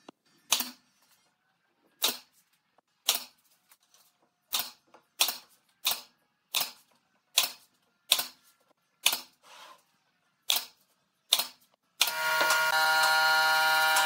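Pneumatic nail gun firing into wood, about a dozen sharp shots at roughly one a second, each with a short hiss of air. Near the end the shots stop and a loud steady hum with several tones takes over for about two seconds.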